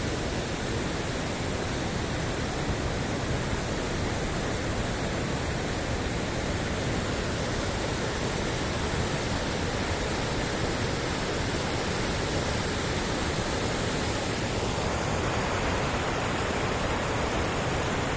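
Steady rushing water, like a waterfall or mountain stream, an even unbroken roar whose tone shifts slightly about fifteen seconds in.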